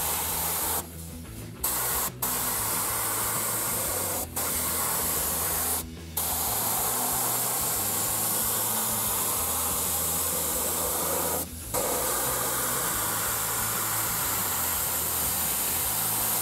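Gravity-feed spray gun hissing as it sprays 2K black primer on its narrowest jet at very low pressure. The hiss stops briefly five times, the longest gap about a second in.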